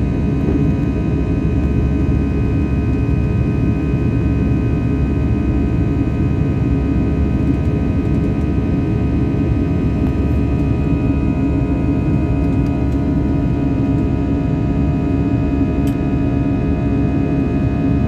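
Passenger aeroplane's engines running steadily: a constant deep rumble with several steady humming tones above it.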